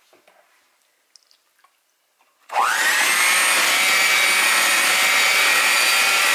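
Electric hand mixer switched on about two and a half seconds in, its motor whine rising quickly and then running steady as the beaters blend ube paste and cream.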